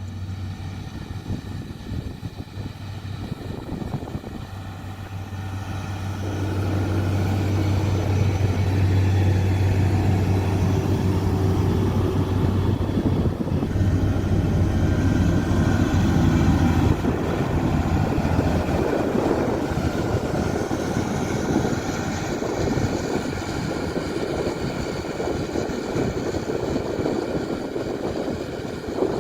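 Komatsu D41P bulldozer's diesel engine running, with a steady low drone that grows louder about six seconds in as the engine comes under load. The drone gives way to a rougher, noisier sound after about seventeen seconds.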